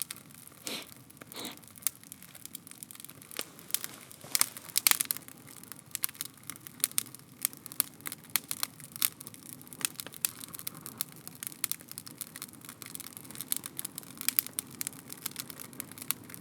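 Scrap-timber bonfire crackling and popping over a low steady rush of flame, with a cluster of louder pops about four to five seconds in and the crackling growing denser after that.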